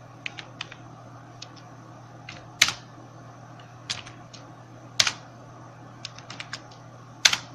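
Typing on a computer keyboard: irregular key clicks in small clusters, with three louder, sharper clicks spaced a couple of seconds apart. A low steady hum runs underneath.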